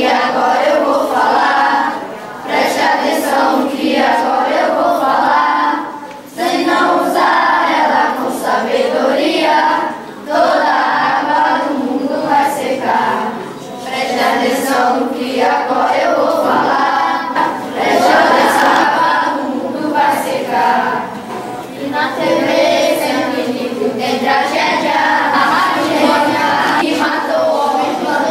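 A group of schoolchildren singing together, phrase after phrase with short pauses between.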